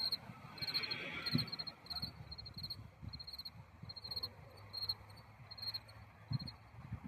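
Crickets chirping in short pulsed chirps, several a second, with a faint uneven low rumble beneath.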